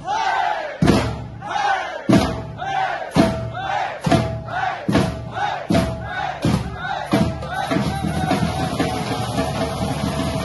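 A percussion group's shoulder-slung drums struck together in loud unison hits that come faster and faster, most hits followed by shouted calls from the group. About eight seconds in, the hits break into continuous rapid drumming.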